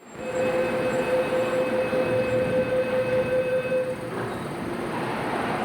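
MTR Tung Chung Line CAF train at the platform: a steady electronic tone, held for about four seconds and then stopping, over the train's constant hum.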